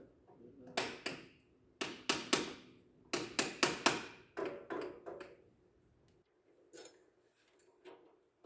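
Hand tools knocking on the metal of a forklift engine: a run of sharp metallic knocks with short ringing, in quick groups of two to five, then a few fainter ones near the end.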